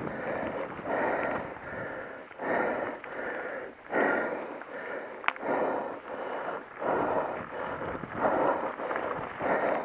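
A mountain biker breathing hard and fast, roughly one breath a second, from the effort of a slow uphill climb. A single sharp click sounds about five seconds in.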